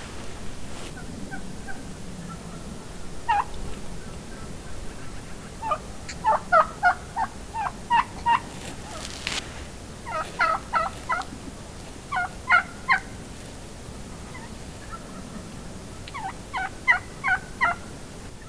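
Wild turkeys calling close by: several series of quick, loud notes in bursts about a second long, with a lone note a few seconds in.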